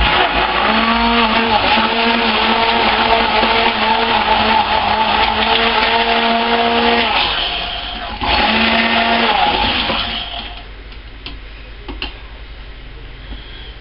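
Handheld stick blender motor running steadily at one pitch in a small cup. It runs for about seven seconds, stops briefly, then runs again for about two seconds. After that come a few light clicks as the blender knocks against the cup.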